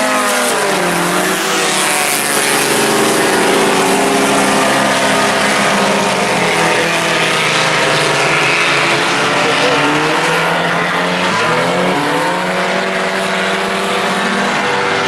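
A pack of four-cylinder IMCA Sport Compact race cars racing, several engines running at once at different pitches. The engine pitch falls shortly after the start and climbs again around twelve seconds in.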